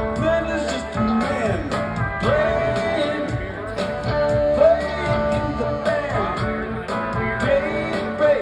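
Live rock band playing: a lead line of held notes that slide up and down over guitar and a steady drum beat.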